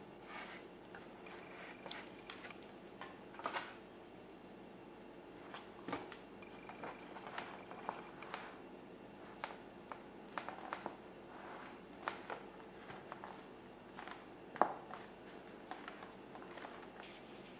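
Faint handling noise of hands working on a foam model-plane wing: scattered, irregular small clicks, taps and scrapes as a rod and wiring are pressed into the foam, over a steady low hum.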